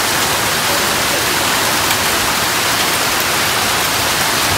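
Heavy rain mixed with hail pouring down in a dense, steady hiss.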